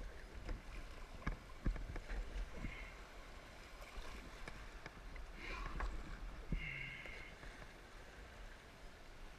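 Kayak paddle strokes splashing and water rushing past the hull through a shallow creek riffle, with occasional sharp knocks.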